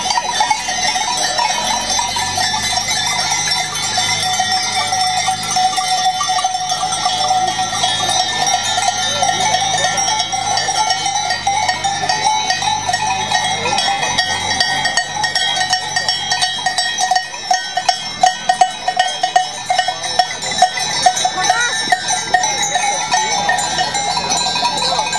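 Many bells on a herd of walking goats, clanging and jangling without a break. Sharper, louder clangs come in over the last several seconds.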